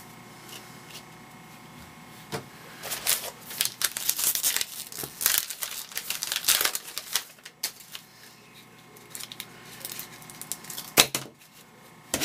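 A pack of baseball cards being torn open and handled: a few seconds of crackling tears and wrapper rustle, then the cards slid and tapped together in the hands.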